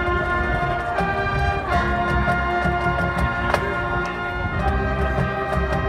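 Marching band playing live: brass holding sustained chords that change every second or two, over steady percussion hits.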